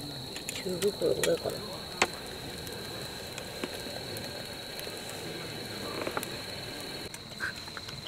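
A few sharp clicks and light metallic knocks, most of them in the first two seconds, as a small metal pot of hot wine and its contents are handled on a camp stove. A steady high thin tone runs underneath.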